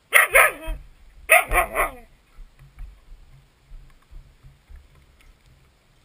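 Husky barking in two loud bursts about a second apart, each a quick run of barks with bending pitch. Softer low thumps follow.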